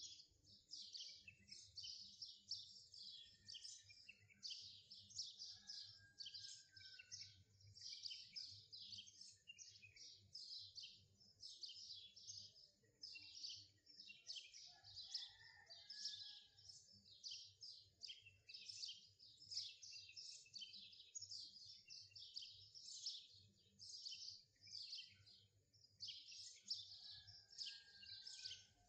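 Faint birdsong: a steady stream of quick, high chirps and twitters, several a second, with no break.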